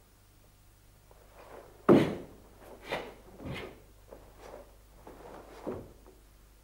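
A karateka's bare feet stamping and shifting on a wooden floor, with his gi snapping on the techniques of the kata Tekki Nidan. One loud, sharp thud comes about two seconds in, followed by several softer thuds and swishes.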